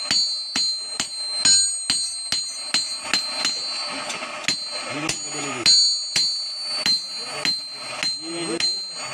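Hand hammer beating a red-hot axe head on a round steel anvil block, about three blows a second, each strike ringing with a high metallic tone.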